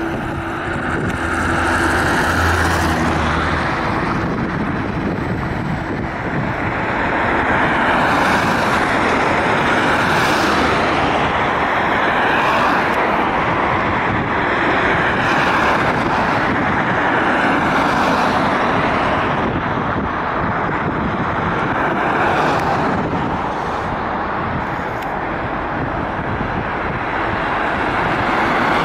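Street traffic noise: a steady hiss of tyres and vehicles on the road, including a trolleybus driving away around a turnaround loop, swelling and fading every few seconds.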